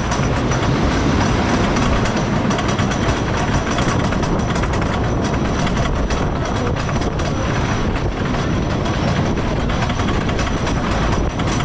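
Wooden roller coaster train running on its track, a steady rumble of wheels with fast, continuous clattering from the rails and wooden structure.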